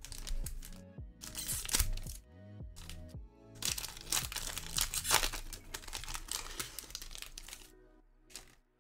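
Foil wrapper of a Magic: The Gathering booster pack crinkling and tearing as it is handled and opened, in several bursts with the longest in the middle, over background music.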